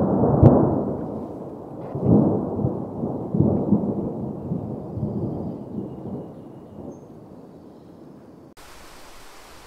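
Wind buffeting the microphone in gusts, a low rumble that swells and fades several times, then switches suddenly to a steady hiss near the end.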